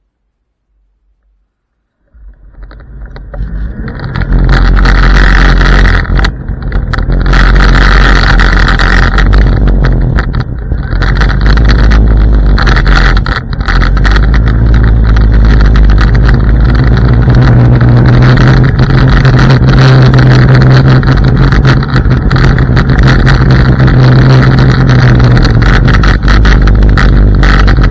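IO Hawk Legend electric scooter riding along an asphalt path: tyre rumble and wind buffeting the low-mounted microphone in a loud, steady rush with a low hum. It starts about two seconds in and builds to full level within a couple of seconds.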